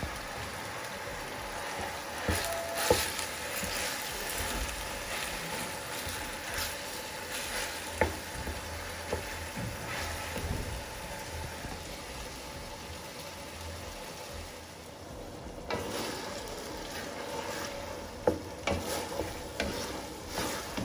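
Beef mince sizzling as it fries in olive oil in a stainless steel pot, with a wooden spoon scraping and knocking against the pot as the mince is stirred and broken up. The knocks come in scattered clusters, several near the end.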